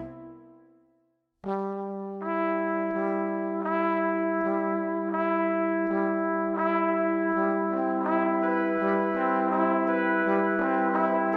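Instrumental background music: one piece fades out into a moment of silence, then a new piece starts about a second and a half in, with held notes and a steady run of repeated notes.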